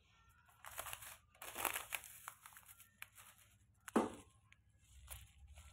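Thin plastic grocery packets crinkling as they are handled and moved, with a single sharp knock about four seconds in.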